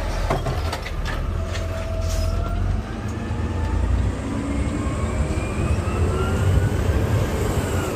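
Garbage truck engine running, heard from inside the cab as the truck drives along, with faint rising whines in the second half as it gathers speed.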